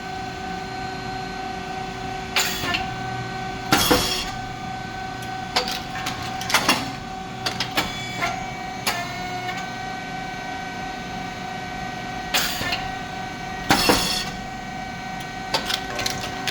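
SYP4509 rice cake popping machine running through its cycle: a steady motor hum under repeated mechanical clacks and knocks, with a loud pop about four seconds in and again about ten seconds later as the heated moulds open and release a batch of puffed rice cakes.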